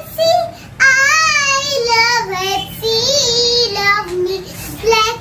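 A young girl singing a song in a high child's voice, holding notes that step up and down in pitch, with short breaths between phrases.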